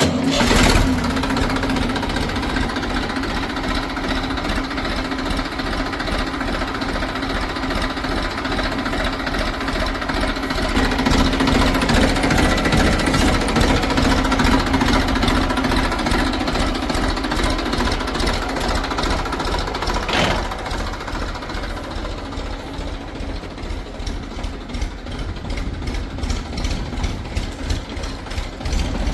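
Heavy diesel engine running with a fast clatter, a steady hum under it that fades a little past halfway; a single sharp knock about 20 seconds in.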